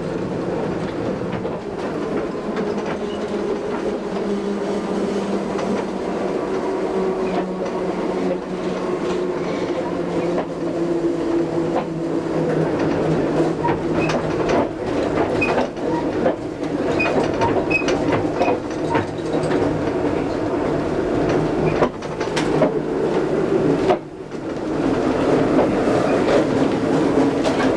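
Electric tram running along street track: a steady traction-motor hum that drifts slowly in pitch, with scattered clicks from the wheels on the rails. The sound dips briefly about three-quarters of the way through, then comes back louder.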